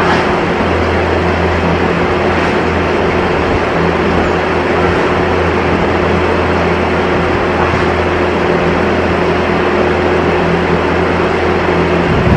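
Loud, steady machinery noise with a constant hum and a steady tone, unchanging throughout.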